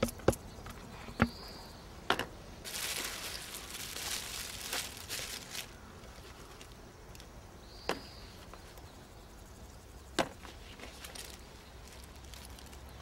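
A handful of sharp, isolated clicks and a rustle lasting a few seconds, about three seconds in, over a quiet outdoor background.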